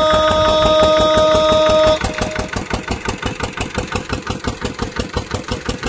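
Music with held tones for about two seconds, cutting off sharply. Then an engine idling with an even thudding beat, about four or five beats a second.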